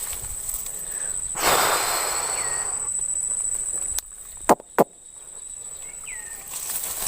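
Steady high insect drone, with a brief rush of splashing water about a second and a half in. The drone cuts out suddenly near the middle, and two sharp clicks follow close together.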